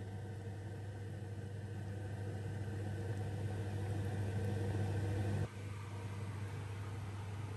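Steady low mechanical hum with a faint hiss, from a kitchen appliance running by the stove while the soup cooks. The hum cuts out sharply about five and a half seconds in, then carries on a little quieter.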